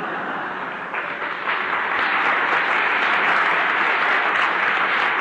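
Audience applauding, the clapping swelling over the first second or two and then holding steady.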